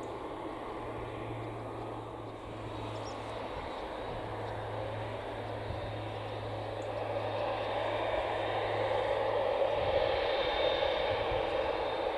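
Boeing 787 Dreamliner's jet engines running at taxi power: a steady rush over a low hum, growing louder from about seven seconds in as the airliner draws nearer, with a thin high whine near the end.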